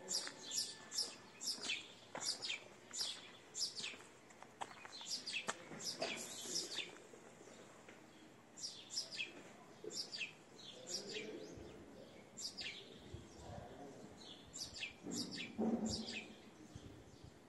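Small birds chirping: short, high chirps that each sweep down in pitch, coming in quick runs with a thinner stretch in the middle. A brief lower sound stands out about two seconds before the end.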